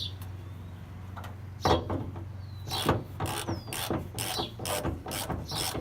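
Socket ratchet clicking in quick, even strokes, about three or four a second, starting a couple of seconds in, as a 14 mm socket loosens the nut on a negative battery terminal. A steady low hum runs underneath.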